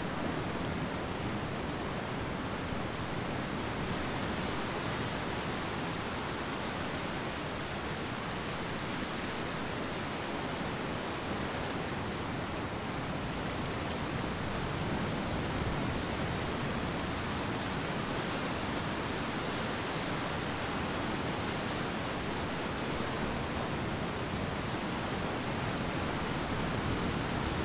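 Ocean surf washing onto a beach: a steady, continuous rushing hiss with no distinct wave crashes.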